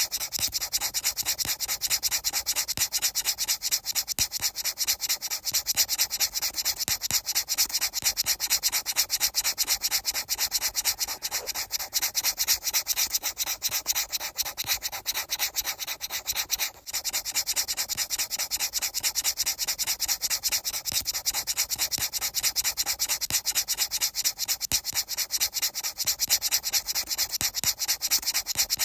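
Rapid, evenly repeated rubbing or scraping strokes, like sanding, keeping a steady pace throughout, with a brief break about seventeen seconds in.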